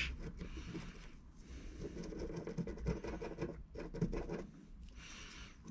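Small stiff-bristled brush scrubbing a metal Brembo brake caliper hardware clip: a quick, irregular run of light scratching strokes, easing off near the end.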